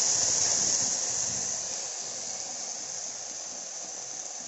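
Grated bottle gourd in hot ghee sizzling in a pan as milk bubbles up around it: a steady hiss that fades over the first couple of seconds, then holds lower.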